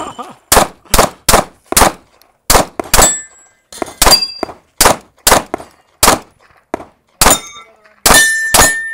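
Glock 19 9mm pistol fired in a rapid string of about fifteen shots at uneven spacing, several hits followed by the ring of steel target plates.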